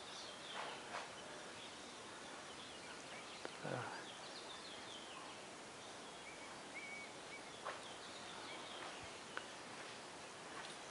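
Quiet rural background: a steady faint hiss with a few short, high, falling bird chirps and a handful of light clicks.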